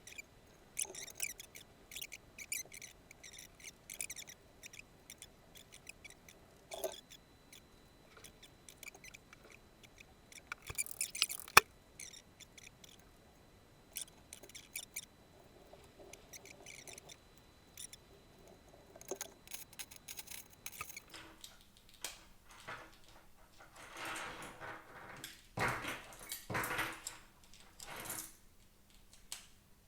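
Scattered light clicks, taps and scraping as small plastic mouse parts are handled, with one sharp click about eleven and a half seconds in and some rustling near the end.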